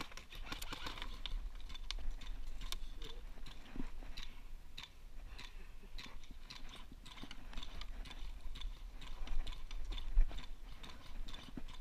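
Scattered, irregular sharp clicks and pops of airsoft guns firing around the field, over a low wind rumble on the microphone.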